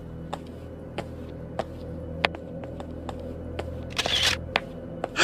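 A steady low ambient drone under a series of sharp clicks, roughly one or two a second, with a brief hissing, rustling burst about four seconds in.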